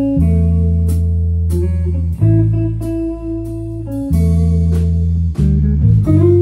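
Guitar, bass and drums trio playing a slow waltz: electric guitar chords over deep bass notes that change about every two seconds, with regular cymbal strokes from the drum kit.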